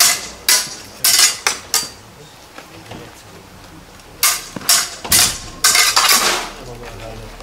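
Sabre blades clashing in quick cut-and-parry exchanges of a fencing drill: a flurry of about six sharp metallic clangs, a pause, then another flurry of about five.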